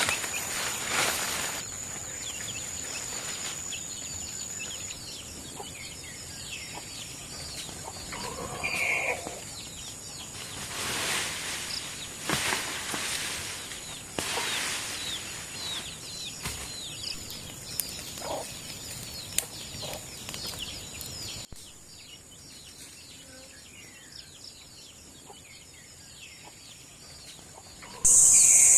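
Farmyard ambience: native chickens cluck now and then over many small bird chirps, with scattered brief rustling noises. It turns quieter about two-thirds of the way through.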